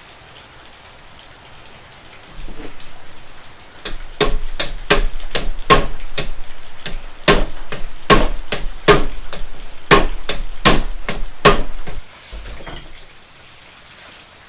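A hammer striking parts of a manual transmission being taken apart: a run of sharp strikes, two to three a second, starting about four seconds in and stopping about eight seconds later.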